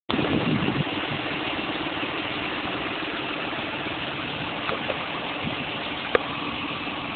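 John Deere tractor's diesel engine running steadily, louder for about the first second. A single sharp click about six seconds in.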